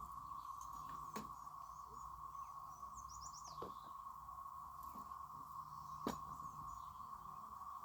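Outdoor woods ambience: a steady, even drone holding one pitch, with a few brief high chirps and three sharp clicks or knocks spaced about two and a half seconds apart.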